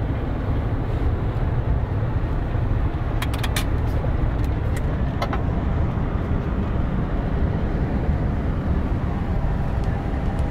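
Mercedes-Benz Actros truck driving at steady speed, heard from inside the cab as a constant low drone of engine and road noise. A few short clicks come about three seconds in and again a little after five seconds.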